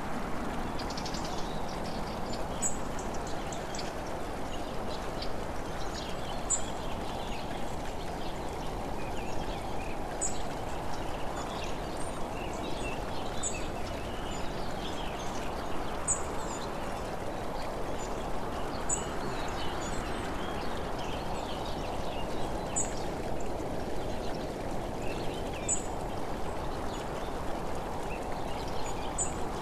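Steady rushing wind and road noise from a camera travelling along a road, with a faint sharp tick every three to four seconds.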